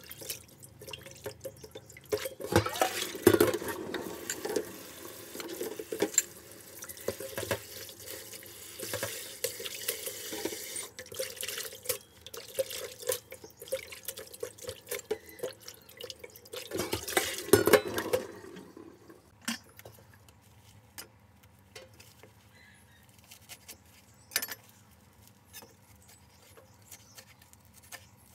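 Kitchen tap running into a bowl in a stainless steel sink while hands swish and rub leafy greens in the water, with louder splashes now and then. The water stops about two-thirds of the way through, leaving only scattered small clicks and handling sounds.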